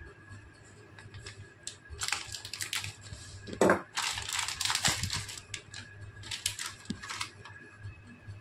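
Plastic packet crinkling and rustling as it is pulled and torn open by hand, in irregular bursts, loudest a little under four seconds in.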